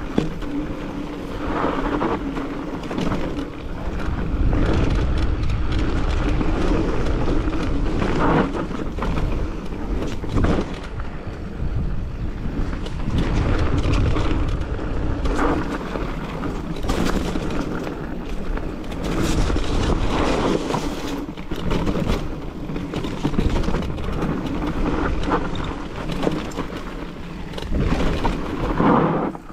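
Mountain bike ridden along a trail: rumble and rattles from the bike as it rolls over bumps, with wind on the microphone.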